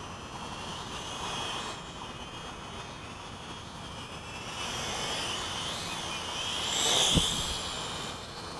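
Tarantula Spider 1505 quadcopter's propellers whining as it flies around overhead. The whine wavers in pitch and grows louder, peaking about seven seconds in with a brief low thump, then fades.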